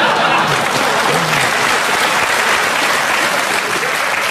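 Studio audience applauding and laughing, the clapping steady and fairly loud.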